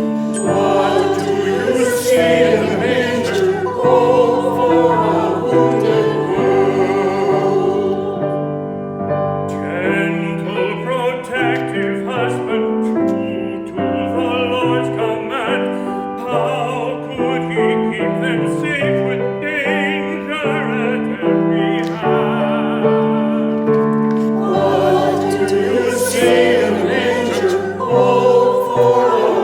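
A choir singing with keyboard accompaniment, held notes changing about once a second, with a softer passage near the middle.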